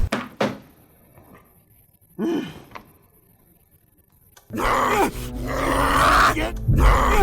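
A couple of thumps, a short groan, then, about four and a half seconds in, a loud rough growling roar that carries on to the end.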